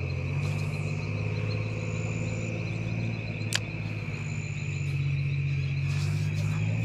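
Insects trill steadily in a high, even pulsing chirr over a low steady drone. A single sharp click comes about three and a half seconds in, and faint swishes come near the start and near the end.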